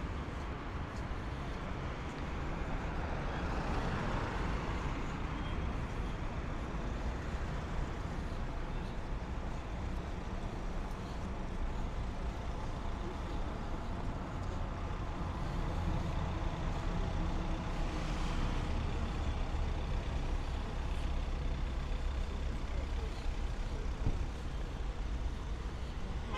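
Street traffic: steady engine rumble and tyre noise from passing cars and vans. A vehicle swells past a few seconds in, and more pass near the middle.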